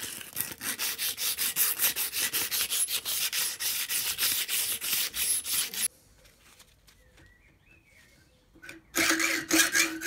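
An abrasive strip rubbed quickly back and forth over a brass pin clamped in a vise, stopping about six seconds in. After a short pause, a hacksaw starts cutting the brass near the end with loud, quick strokes that carry a ringing tone.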